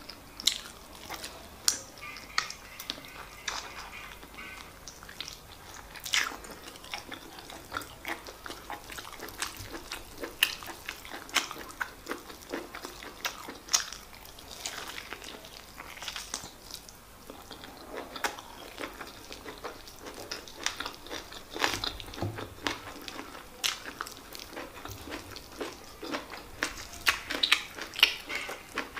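A person biting and chewing a stewed chicken drumstick coated in rice, with many sharp, irregular wet mouth clicks and snaps.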